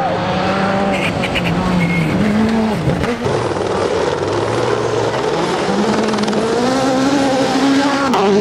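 Rally cars on a gravel stage, engines revving up and down through gear changes. The first is a Škoda Fabia rally car. After a break about three seconds in, a second car revs with its pitch climbing, then drops off briefly near the end.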